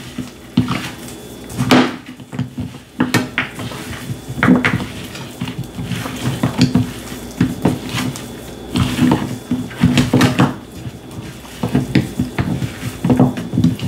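Hands massaging pepper into raw lamb pieces in a bowl: irregular knocks and clatter against the bowl, several a second, over a steady low hum.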